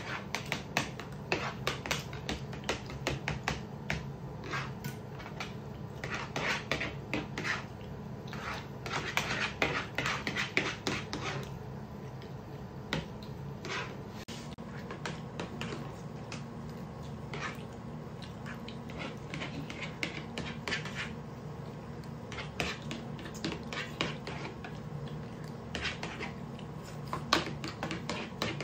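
Metal spoons clicking and scraping against plates while two people eat rice quickly, with chewing and lip-smacking. The clicks come thick and fast for the first dozen seconds, then thin out, over a steady low hum.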